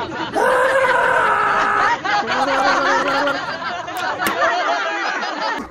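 A group of people laughing and calling out, with one long held vocal cry near the start.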